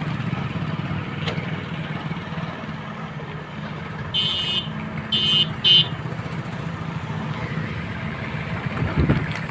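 Engine running steadily, with three honks of a vehicle horn about four to six seconds in, the last one very short.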